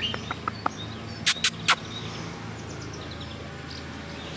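Outdoor garden ambience: faint bird chirps over a steady low hum, with three sharp clicks close together about a second and a half in.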